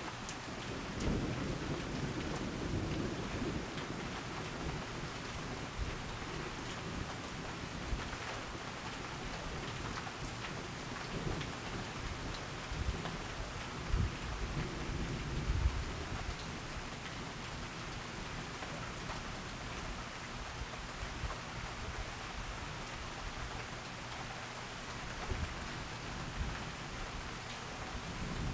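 Steady rain falling in a thunderstorm, with low rolls of thunder about a second in and again around the middle.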